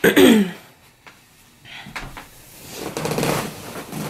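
A person moving into place and sitting down on a bed: rustling of clothes and bedding with some shifting and creaking. It opens with a brief loud sound falling in pitch.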